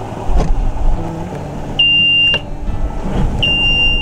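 Alarm buzzer on a sailboat's diesel engine control panel sounding a steady high beep: a short one about two seconds in and a longer one starting near the end, over a low rumble with a few sharp clicks. This is the warning buzzer that sounds with the ignition on around engine start.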